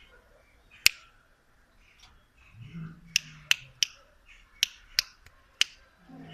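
Lion giving a short, low grunt, among a scattered series of sharp snapping clicks, which are the loudest sounds.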